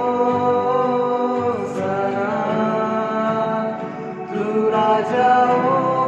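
Male voice singing a worship song over electronic keyboard and strummed acoustic guitar, holding long notes. There is a brief break for breath about four seconds in before the next phrase.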